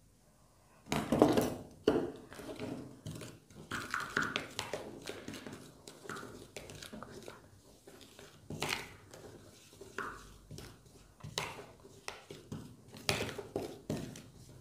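Metal spoon stirring and scraping a damp mix of black powder and cornflour in a small plastic bowl, in irregular scrapes and clicks that start about a second in with a louder knock. It is the fuel being mixed with a little water into a damp paste for a homemade rocket motor.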